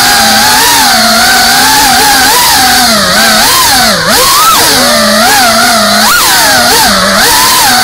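FPV racing quadcopter's electric motors and propellers whining, the pitch rising and falling constantly with the throttle. The pitch dips sharply about four seconds in as the throttle is chopped, then climbs back.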